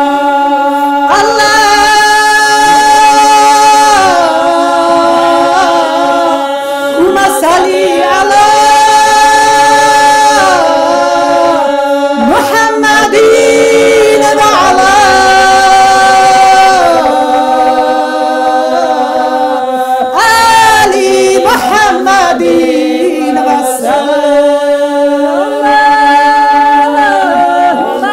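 Women singing an unaccompanied chant: a lead female voice carries a wavering melody in phrases of a few seconds over a steady drone held underneath.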